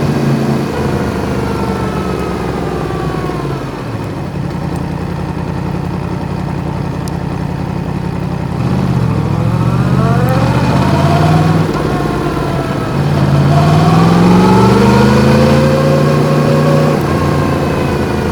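Yamaha MT-10's crossplane inline-four with an Akrapovič exhaust, ridden on the road. The revs fall over the first few seconds and hold steady for a while, then climb and drop back twice in the second half.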